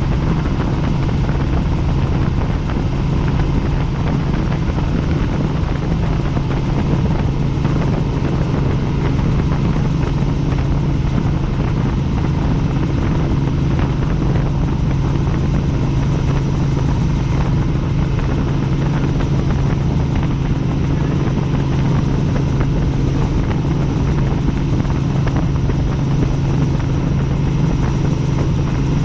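Helicopter in flight: the steady, loud drone of its engine and rotors, with a strong low hum and a faint high whine, unchanging throughout.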